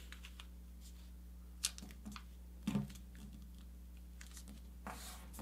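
A sheet of paper being folded and creased by hand, heard as a few short, faint rustles and taps, the clearest about one and a half and just under three seconds in.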